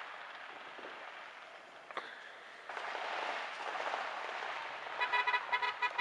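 A distant firework bang about two seconds in, then a steady crackling hiss of far-off fireworks. Near the end comes a rapid pulsed beeping with several pitches.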